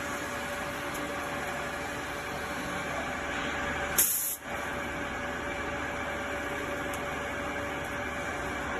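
CNC gantry plate drilling machine running: a steady hiss with a faint steady hum. About four seconds in there is a brief sharp hiss, then a short drop in level.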